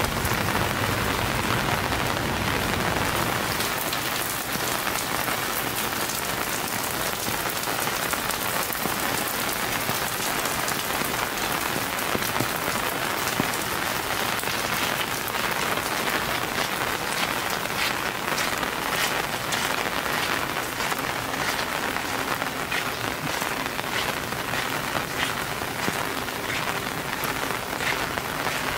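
Steady rain falling, a dense hiss with many individual drops ticking and splashing on hard surfaces. A low rumble underneath fades out in the first few seconds.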